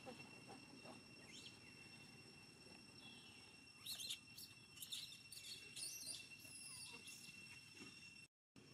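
Faint high-pitched animal chirps and short squeaks: a cluster about four seconds in, more between five and six seconds, over a steady high-pitched ringing tone. The sound drops out completely for a moment near the end.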